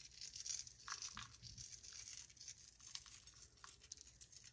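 Faint crackling and small ticks of flaky salt crumbled between the fingers and sprinkled onto the charred skin of a whole grilled fish.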